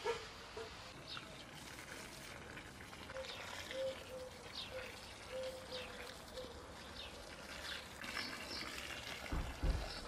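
Water from a garden hose running and splashing onto soil in a flower bed, with birds chirping here and there. A couple of low thumps come just before the end.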